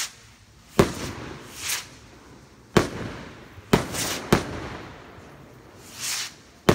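Carbon Rockets firework rockets going up and bursting: short swelling hisses as rockets lift off, and five sharp bangs of the bursts, each ringing on briefly.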